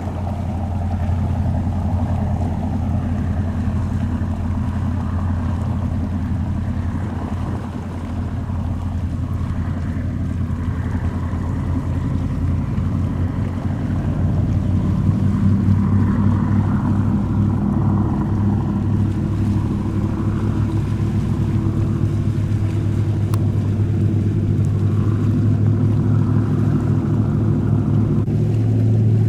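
Boat engine running steadily with a low, even hum; it grows a little louder about halfway through.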